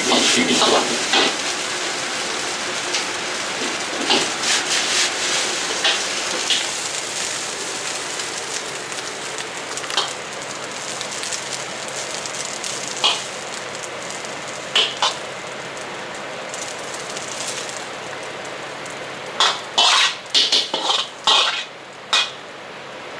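Egg fried rice sizzling in a wok while a steel ladle scrapes and clinks against the wok, the hiss slowly dying away as the wok comes off the heat. Near the end comes a quick run of ladle clinks and scrapes as the rice is pushed out onto a plate.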